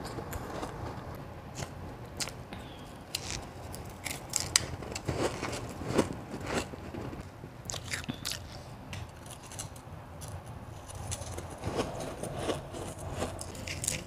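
A person biting and chewing crushed ice and powdery molded ice: a string of irregular, sharp crunches, bite after bite.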